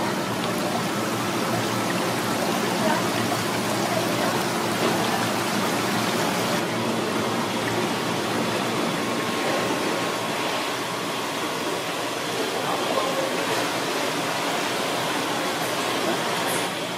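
Steady rush of running water in seafood market tanks, even and unbroken.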